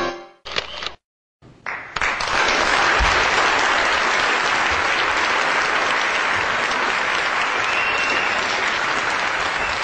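Audience applauding, steady dense clapping that sets in about two seconds in, after piano music breaks off and a moment of silence.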